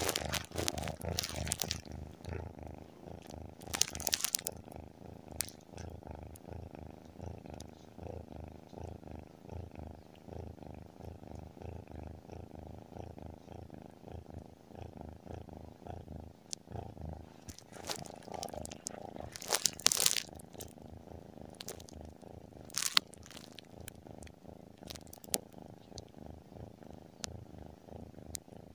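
Tabby kitten purring steadily, close to the microphone, in a fast even rumble. A few brief scratchy rustles break in about 4 seconds in, around 18 to 20 seconds, and near 23 seconds.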